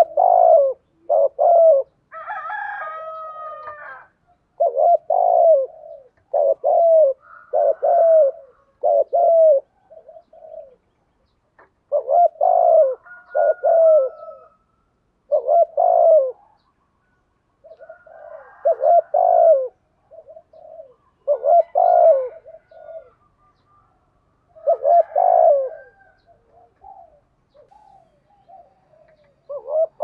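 Spotted dove cooing: short groups of low coo notes repeated every two to three seconds, the rapid, excited cooing (thúc gù) that keepers use to stir up a male.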